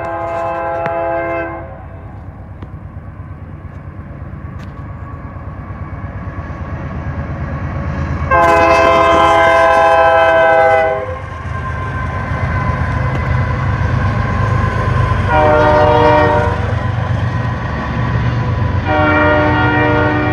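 Freight train's diesel locomotive horn sounding several notes at once in four blasts, long, long, short, long, the pattern of a grade-crossing warning; the second blast is the loudest. Beneath it the low rumble of the passing diesel locomotives grows steadily louder.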